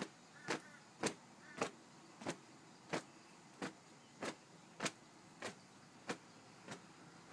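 Cloth towel swiped again and again against denim jeans, brushing off white powder: a steady run of short swishes, about one every 0.6 seconds.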